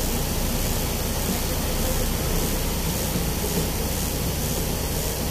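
Truck engine idling, heard from inside the cab: a steady low drone under an even hiss.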